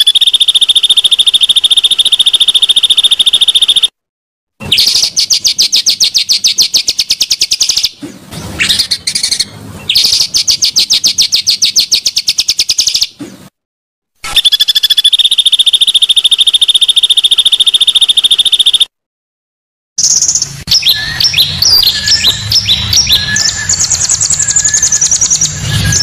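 Edited bird-song training track: spliced recordings of rapid, buzzy high trills, each held a few seconds and cut off abruptly by short silences, then a quick run of varied chirping, whistled notes in the last several seconds.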